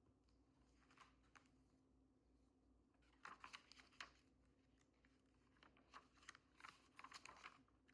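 Near silence, with a few soft clusters of faint clicks and rustles.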